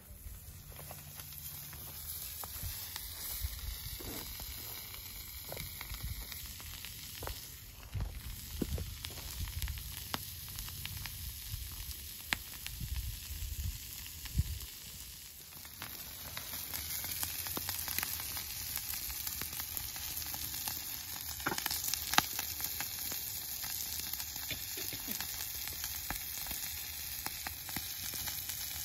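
Chorizo sizzling on a round steel griddle (comal) over a wood fire, with sharp pops and crackles here and there. The sizzling gets louder about halfway through.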